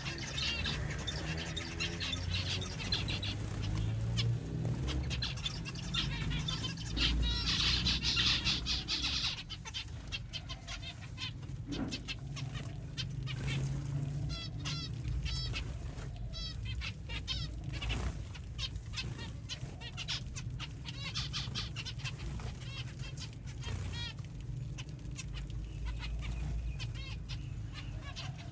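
Zebra finches calling, with many short high chirps in quick succession, busiest about eight seconds in, over a steady low rumble.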